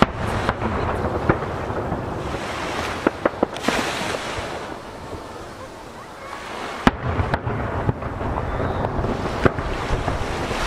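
Aerial firework shells bursting: a series of sharp bangs, echoing off the nearby mountains, with the loudest near the start and about seven seconds in. Between the bursts, waves wash against the jetty with a steady surf noise.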